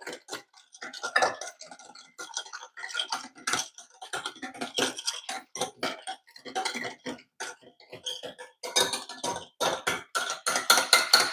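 Hand stirring and whisking liquid in a ceramic bowl: the thin wire whisk of a broken handheld frother, worked by hand without its motor, makes irregular clinks and scrapes against the bowl, busier toward the end.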